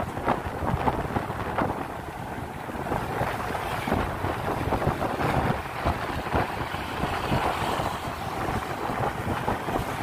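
Wind buffeting the microphone of a moving motorcycle, in uneven gusts, over a steady rumble of engine and road noise.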